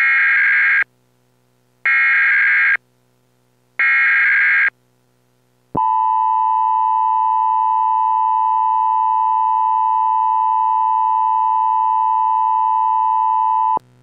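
Emergency Alert System header: three short bursts of screeching digital data tones, about two seconds apart. Then a loud, steady attention tone is held for about eight seconds and cuts off suddenly.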